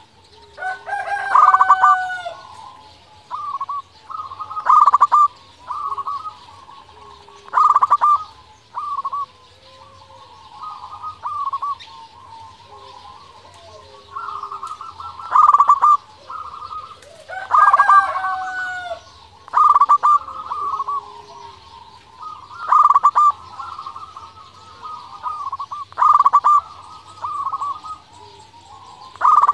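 Zebra dove cooing: short phrases of pulsed, rhythmic coos repeat every two or three seconds. Another bird's longer, drawn-out call cuts in twice, about two seconds in and again past the halfway point.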